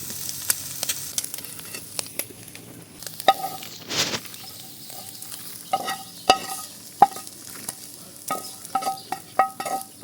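Grasshoppers dry-frying in a metal pan, stirred with a metal spatula: scraping and rattling with a light sizzle, and ringing clinks of the spatula striking the pan that begin about a third of the way in and come faster near the end.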